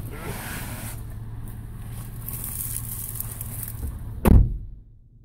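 Toyota FJ Cruiser's 4.0-litre V6 idling while a passenger climbs out through the open door with clothing rustling, then the door is slammed shut about four seconds in. After the slam only the engine's low hum is left inside the closed cab.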